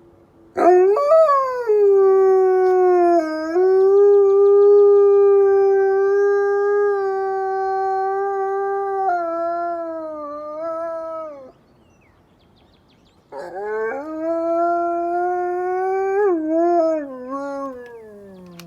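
A wolf howling: one long howl that swoops up, holds a steady pitch for several seconds and fades out, then after a short pause a second howl that wavers and slides down in pitch near the end.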